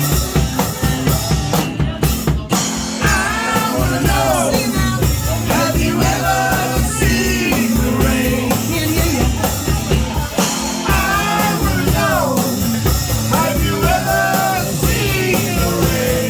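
Live rock cover music: a singer's voice carrying a melody over a steady drum beat and band accompaniment.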